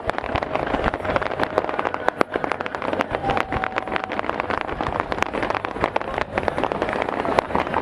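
Fireworks going off in rapid succession: a dense run of bangs and crackles over a steady noisy background.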